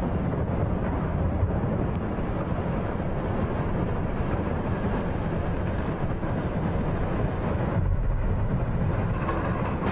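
Snow pouring through the collapsed fabric roof of the Metrodome into the stadium: a steady, loud, low rushing rumble with no breaks.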